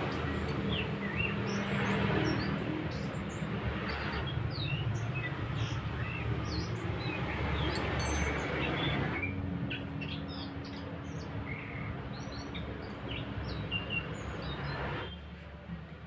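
Small birds chirping in many short, quick calls over a steady low background rumble; the rumble drops away near the end.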